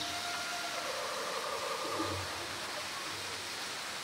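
A steady rushing noise, like running water, with faint background voices.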